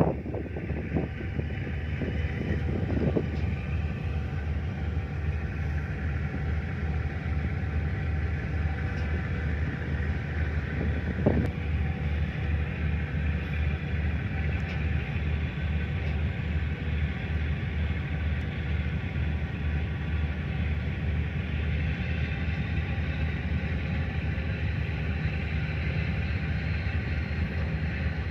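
A boat engine running steadily with a low, pulsing rumble, with a single short knock about eleven seconds in.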